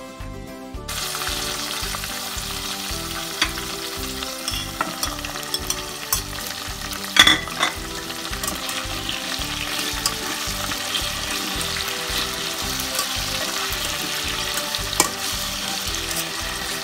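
Onion and carrot slices sizzling in hot oil in a stainless steel pan. The sizzle starts about a second in, with metal tongs clicking and scraping against the pan as the vegetables are stirred, and a louder clatter about seven seconds in as red bell pepper strips go into the pan.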